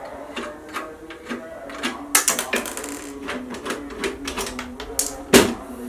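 Irregular metallic clicks and taps of screws being unscrewed from a desktop PC case's back panel, with a louder knock near the end, over a steady low hum.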